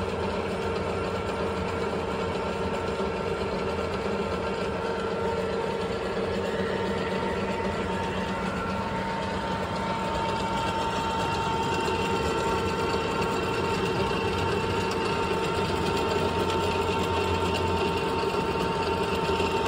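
Victor 618EM toolroom lathe running: a steady mechanical hum with a constant whine, growing slightly louder about halfway through.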